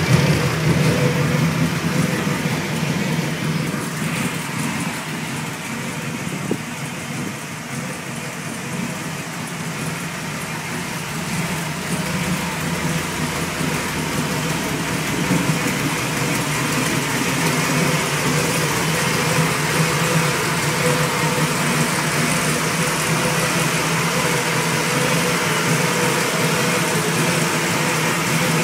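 T-bucket hot rod's engine idling steadily, dipping slightly in level a few seconds in and then coming back up.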